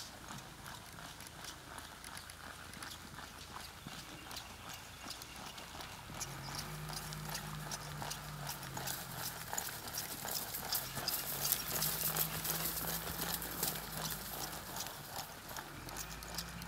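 Hoofbeats of a saddled horse moving over a dirt arena: a steady run of soft clip-clops that grows louder in the second half.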